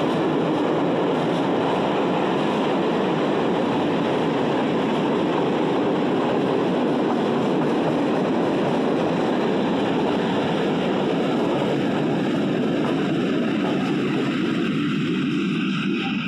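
Freight train's open wagons rolling past on the rails: a loud, steady rolling noise of wheels on track that fades away near the end as the tail of the train passes.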